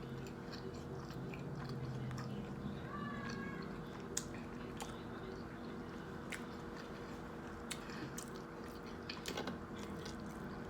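Close-up chewing and biting of a grinder sandwich, with scattered small wet mouth clicks over a faint steady room hum.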